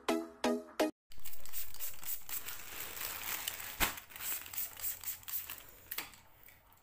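Plastic courier mailer pouch crinkling and rustling as it is handled, loudest at first and fading, with one sharp click about four seconds in. The first second holds the last notes of an electronic intro jingle.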